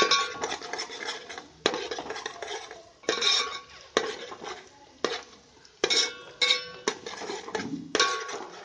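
Metal spoon scraping and knocking against a steel pan while stirring onions frying in oil to brown them. There are about nine strokes, roughly one a second, and each knock rings briefly.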